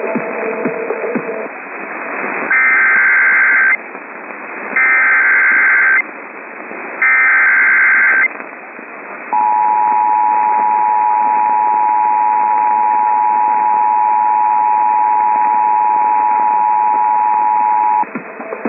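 Emergency Alert System SAME header sent three times as short screeching data squawks, each a little over a second long, then the steady two-tone attention signal held for about nine seconds. Together they open an emergency alert broadcast. Heard over radio with hiss underneath.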